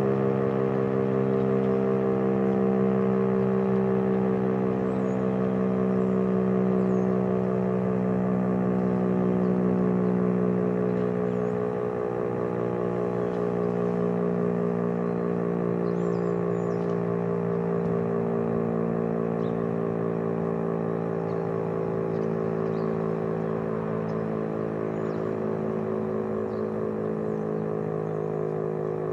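Federal Signal STH-10 dual-tone rotating electromechanical fire siren sounding a steady held chord, swelling and fading slowly as the siren turns.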